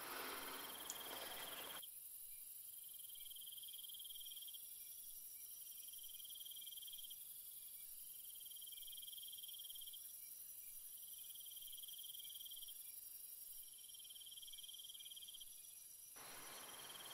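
A cricket chirping faintly in long high trills of about two seconds each, starting every two and a half seconds or so.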